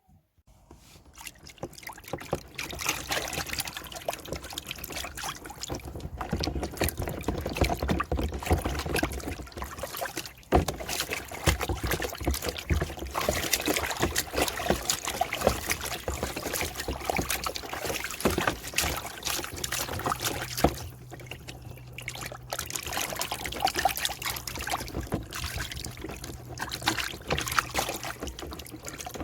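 Warm tap water running and splashing over a laptop's keyboard deck as it is washed to rinse out spilled tea, with brief breaks about ten and twenty-one seconds in. A low steady hum joins in from about twenty seconds.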